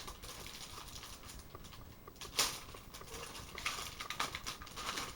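Plastic toy parts being handled: light rustling with scattered small clicks, one sharper click about two and a half seconds in and a run of smaller ones near the end.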